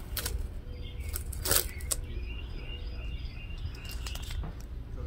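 Blue painter's tape being peeled off a painted boat hull in short crackling rips, the loudest about a second and a half in.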